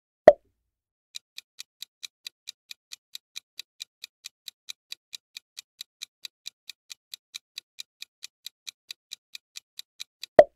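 Quiz countdown-timer sound effect: clock-like ticks at an even pace of about four a second, lasting about nine seconds. A short, loud pop sounds just after the start and another near the end.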